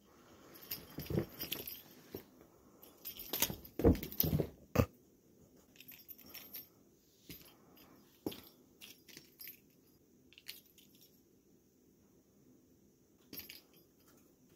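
A kitten scuffling and thumping on carpet as it pounces at a wand toy: a cluster of rustles and soft thumps in the first five seconds, then only a few scattered light clicks.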